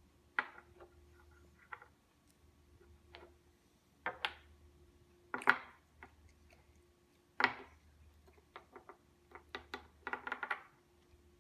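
Wooden puzzle blocks being picked up and set down on a wooden tabletop: irregular sharp wooden clacks and knocks, two of them louder about five and a half and seven and a half seconds in, and a quick run of lighter taps near the end.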